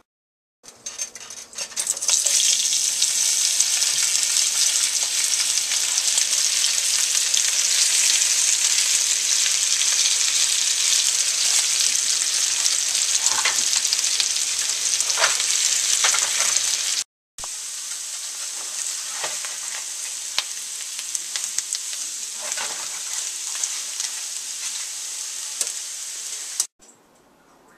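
Chunks of microwave-parboiled potatoes frying in a skillet, a loud steady sizzle. After a cut about two-thirds of the way in, the sizzle goes on quieter and then stops abruptly.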